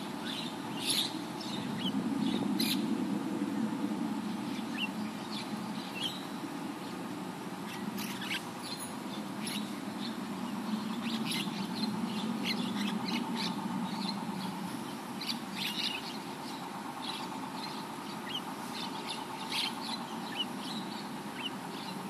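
Mynas calling: many short, scattered chirps and chatters from a flock, over a steady low hum.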